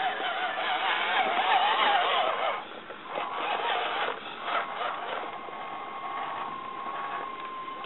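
Electric motor and gear drivetrain of a 1:6 scale RC Willys Jeep on a Venom Creeper crawler chassis whining as it crawls over brick. The pitch wavers with the throttle for the first couple of seconds, then settles into a steady high whine from about five seconds in.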